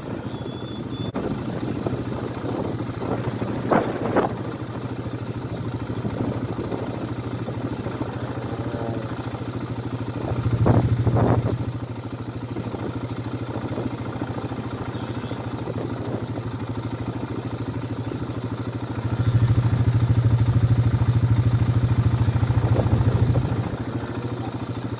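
Engine idling steadily with a low hum. It grows louder for about a second midway, then again for about four seconds near the end.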